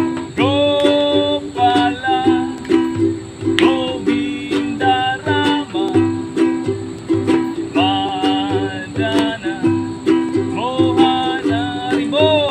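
Kirtan music: a strummed string instrument keeps a steady rhythmic chord pattern under a voice chanting a mantra in short, gliding phrases.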